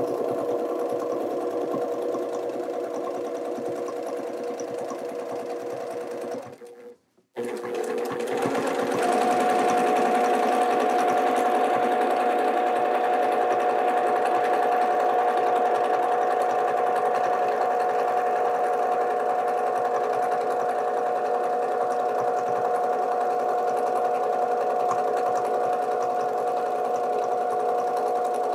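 Domestic sewing machine running steadily at speed during free-motion quilting, a continuous motor-and-needle hum. It cuts out for about a second about seven seconds in, then runs on steadily and a little louder.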